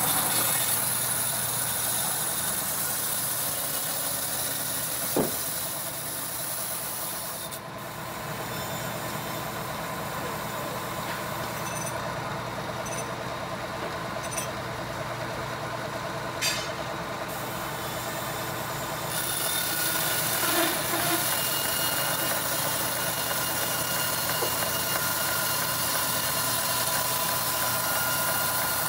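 Band sawmill running with a steady mechanical hum while its blade cuts a mahogany log, with a high hiss over the hum. The hiss drops away for about ten seconds partway through, then returns.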